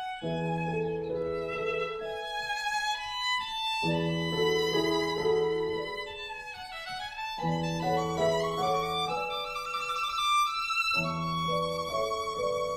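Background music: a melody over held low chords that change every few seconds.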